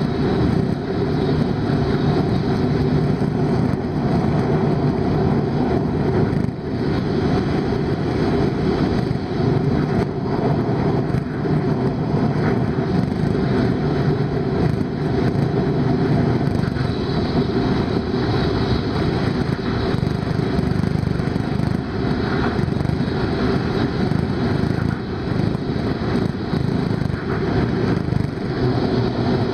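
Hokuriku Shinkansen bullet train running at high speed, heard inside the passenger cabin: a steady, loud rumble and rush of wheels on rails and air.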